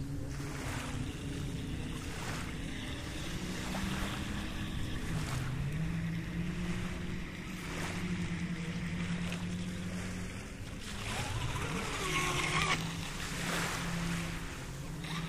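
Wltoys WL913 brushless RC speedboat, running on a 4S lipo, buzzing out on the water, its motor note dipping and climbing in pitch as the throttle changes. Small waves and wind on the microphone rustle underneath.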